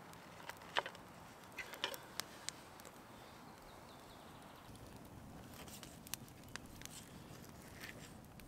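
Light clicks and knocks of a wooden serving tray, vegetables and a kitchen knife being handled, the sharpest knock about a second in and a small cluster a second later, then only faint taps over a low outdoor background.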